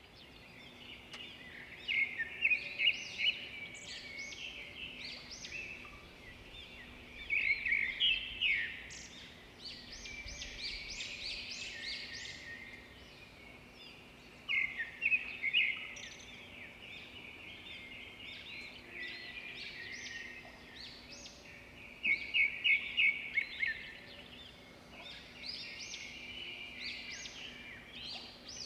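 Small birds chirping in repeated bursts of quick trills every few seconds, over a faint steady hum.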